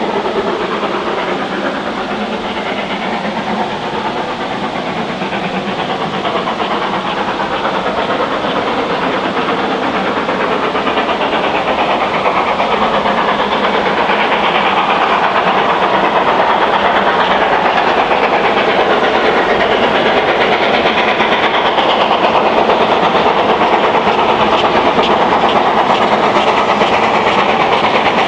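Great Western Railway Manor-class 4-6-0 steam locomotive No. 7822 Foxcote Manor approaching under steam. It grows louder through the first half, then holds steady.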